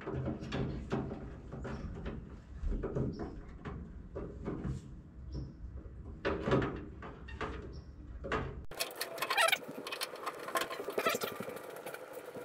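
Irregular clicks, taps and light scrapes of thin metal grille screens being handled and pressed into a VW Beetle's steel dashboard, with a few brief high squeaks.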